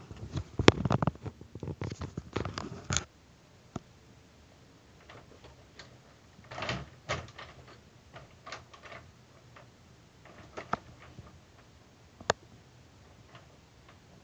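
Handling noise: a dense clatter of knocks and clicks for the first three seconds, then scattered light clicks and rustles, with one sharp click about twelve seconds in, as the plastic RC toy truck and the camera are handled.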